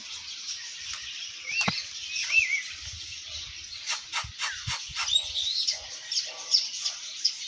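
Many caged birds calling at once: a constant high chatter of chirps, with clear whistled notes standing out. There are two curling whistles about two seconds in, and a cluster of sharp downward-sweeping calls a little past the middle.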